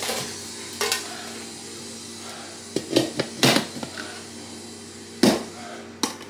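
Cookware clattering: a lid being fitted onto a roasting pan, with about six separate knocks and clinks of lid against pan.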